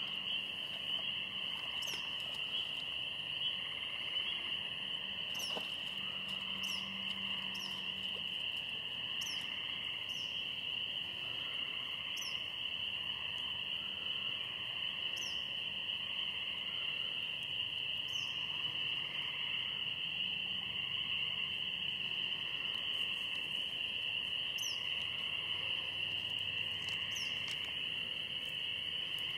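Evening chorus of frogs and insects: a steady high-pitched trilling drone with a lower chorus that swells and fades beneath it. Short, high, down-slurred chirps come every second or two.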